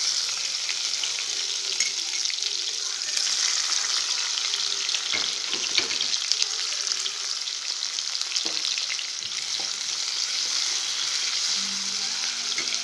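Chopped onions sizzling and crackling in hot oil in a pan, a steady frying hiss, with a spatula stirring them now and then.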